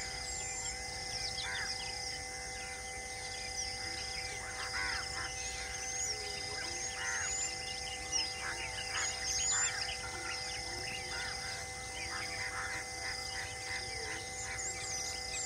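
Outdoor ambience of many birds chirping and calling in short, quick notes, over a steady background of insects and a low steady hum.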